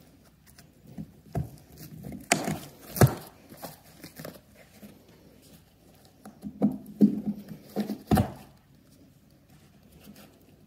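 Pliers gripping and prying carpet staples out of a wooden subfloor: sharp metal clicks and short scrapes, coming in two busy clusters with quieter stretches between.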